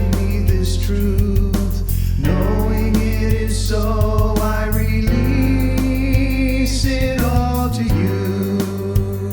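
Gospel-style song with a voice singing long, held notes over a band, with sustained bass notes and a steady beat.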